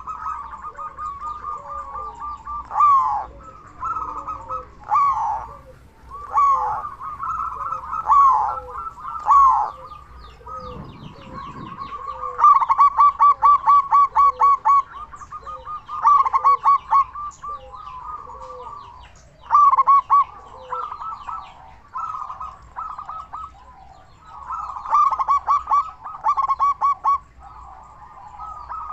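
Zebra dove cooing loudly in repeated phrases, each a rapid rattling run of short notes at much the same pitch. Short lower notes repeat about once a second through the first half.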